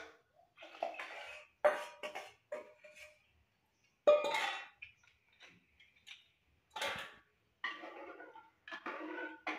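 Steel utensils clinking and scraping against a metal cooking pot as a curry is stirred: a string of sharp metallic clinks with brief ringing, the loudest about four seconds in.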